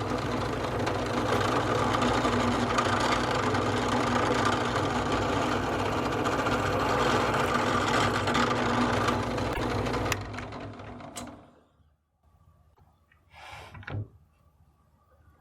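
Drill press running with its bit boring through a walnut stock blank, a steady motor hum under the cutting noise for about ten seconds, then winding down. A short scuffing handling sound follows near the end.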